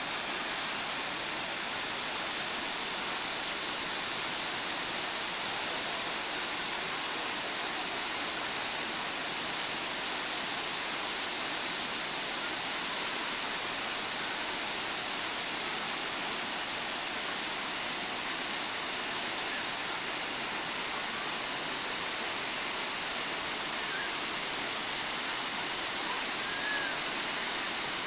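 Shallow rocky mountain stream rushing steadily over small rapids, an even, unbroken sound of running water.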